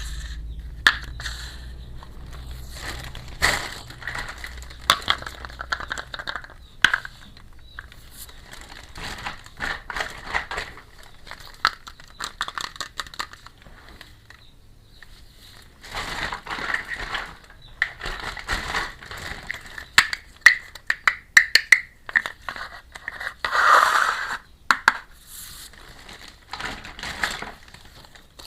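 Plastic packaging crinkling and tearing as a miniature toy kitchen set is unpacked by hand, with many small clicks and taps of plastic toy pieces. There is a longer, louder rustle late on.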